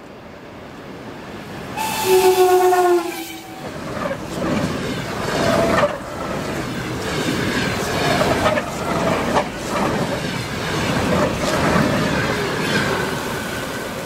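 An ED4M electric multiple unit sounds its horn once, for about a second, about two seconds in. It then rolls past with its wheels clicking rhythmically over the rail joints.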